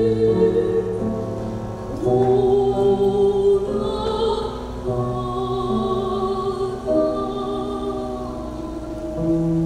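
A woman singing in a classical operatic style, holding long notes with vibrato, accompanied by piano.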